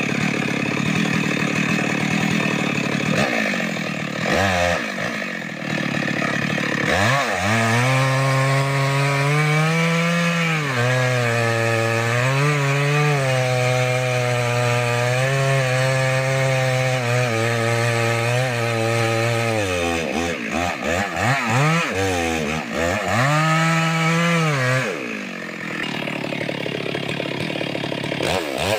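Petrol chainsaw cutting wood, its engine pitch sagging and wavering while the chain is in the cut and rising in quick revs between cuts.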